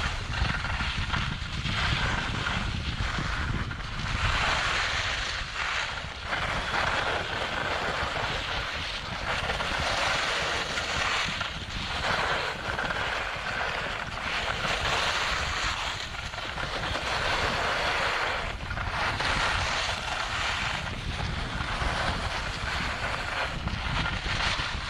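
Wind rushing over a GoPro's microphone during a downhill ski run, a steady low rumble, with the hiss of skis scraping over packed snow swelling and fading every second or two as the skier turns.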